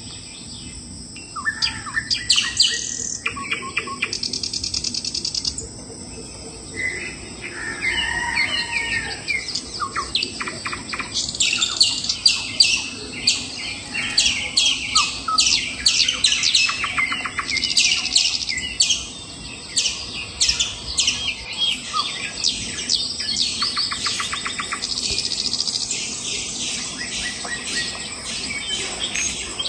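Several birds chirping and calling, with many quick repeated chirps and fast trills, over a steady high-pitched tone.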